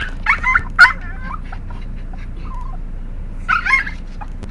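A dog making high-pitched, wavering whining vocalizations in two bursts: a louder one in the first second and a shorter one about three and a half seconds in.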